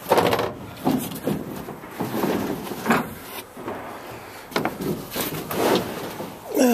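Plastic drop-in bed liner being tugged and shifted in a pickup bed: irregular knocks and scrapes as the liner bumps and drags against the bed.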